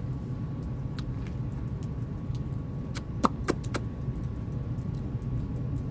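Steady low outdoor background rumble, with three quick clicks a little over three seconds in.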